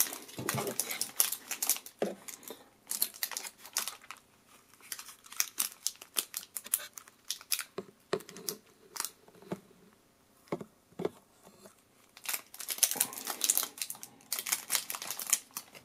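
Handling noise from a pair of cheap plastic Jingyu JYW 1312 toy night-vision goggles being turned over in the hands: irregular plastic clicks and scuffs, with a denser stretch of handling near the end.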